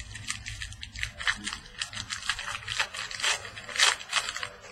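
Trading cards and a foil pack wrapper being handled: a quick, irregular run of crinkles, flicks and scrapes as the pack is opened and the cards are slid out.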